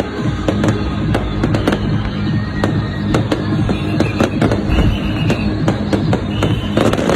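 Low-altitude fireworks going off in quick succession, a steady run of sharp bangs and crackles, with music playing underneath. Near the end a dense flurry of crackling breaks out.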